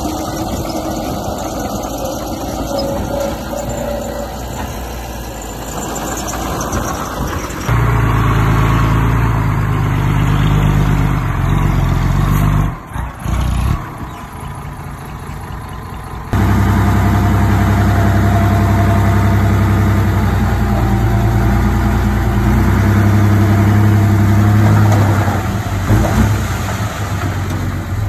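Diesel engines of earthmoving machines, a mini bulldozer and dump truck, running steadily under work. The sound shifts abruptly a few times: it gets louder and deeper about 8 seconds in, drops about 13 seconds in, and comes back louder about 16 seconds in.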